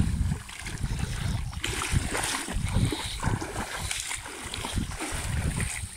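Feet wading and splashing through shallow water, in irregular sloshes, with uneven low rumbling throughout.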